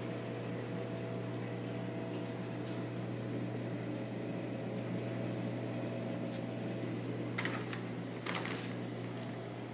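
Steady mains-frequency hum and hiss of a reef aquarium's circulation pumps and powerheads running, with two brief ticks near the end.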